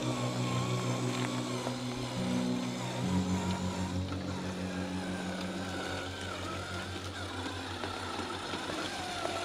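Background music with a steady bass line, over the whine of a scale RC semi truck's electric motor that rises and falls as it crawls over rocks.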